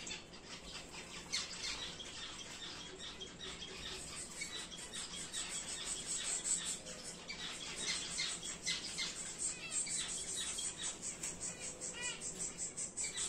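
Aviary finches chirping: a rapid, continuous chatter of short high calls from several birds, growing busier partway through.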